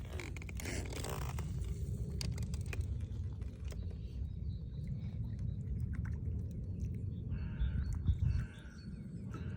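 Outdoor ambience with a steady low rumble, a few faint clicks, and bird calls that come in near the end and stop shortly before it finishes.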